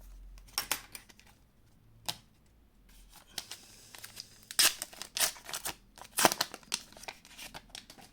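Trading cards and booster pack wrapper handled by hand: an irregular run of short crinkles, flicks and snaps, busiest in the second half.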